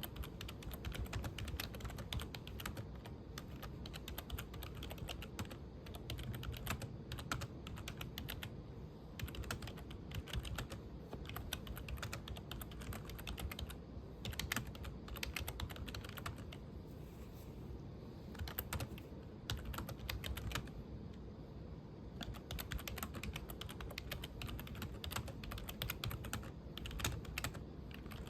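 Typing on a computer keyboard: rapid, irregular key clicks with brief pauses now and then.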